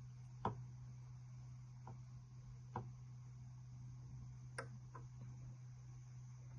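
A few light, sharp clicks, five in all and spaced irregularly, the first the loudest, over a steady low hum.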